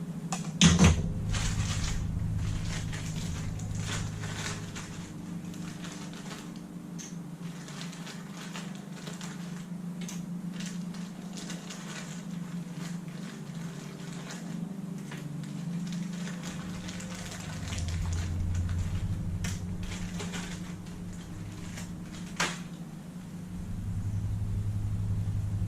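Hands handling electrical wire and Wago lever-nut connectors: rustling and scattered sharp clicks, the loudest near the start and about 22 seconds in, over a steady low hum.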